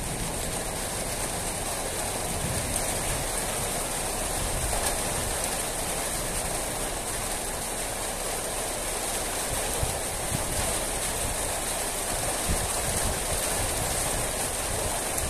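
Steady rain falling, an even hiss with a few sharper taps here and there.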